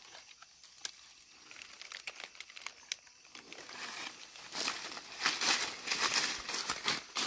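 Footsteps crunching through dry leaf litter and brushing through leafy undergrowth, an irregular crackling rustle that grows louder about halfway through; only faint scattered leaf crackles before that.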